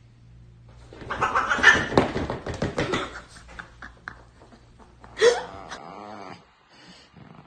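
Two house cats in a sudden brief fight: a loud burst of hissing and screeching with scuffling, lasting about two seconds. About two seconds later comes one short, sharp cry.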